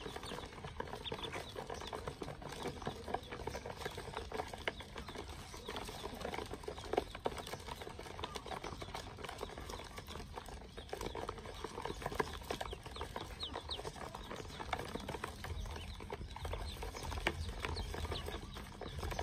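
A crowd of ducklings peeping continually, many short high chirps overlapping, with small scrabbling clicks as they move about in a plastic basin.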